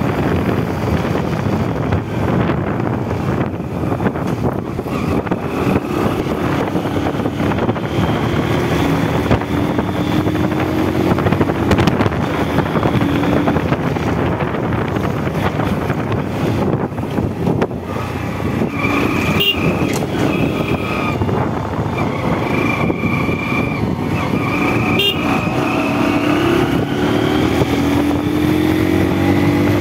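Motorcycle engine running while the bike rides along at road speed, with heavy wind rush on the microphone. The engine note climbs slowly a few times as the bike accelerates.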